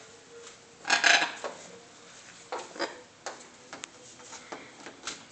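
Macaw climbing and hanging on sheer curtains: fabric rustling and rubbing, with a few small clicks and a louder harsh burst about a second in.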